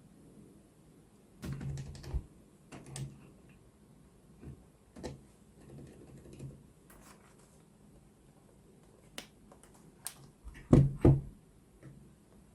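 Scattered plastic clicks and clacks from a keyboard's keycaps and switches being handled and pressed, coming a few at a time at uneven gaps. The loudest are two sharp clacks close together about eleven seconds in.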